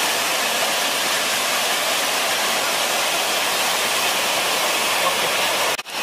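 Steady rushing noise of the Tirta Buana waterfall, water pouring down onto rock and its plunge pool. It cuts off abruptly just before the end.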